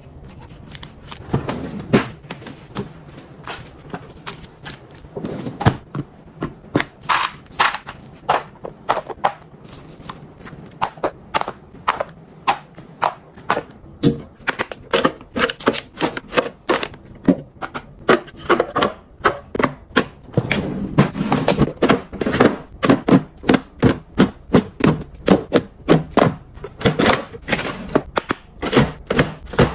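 A long series of sharp taps and knocks from kitchen work, scattered at first and then coming quickly and fairly evenly, about two to three a second, through the second half.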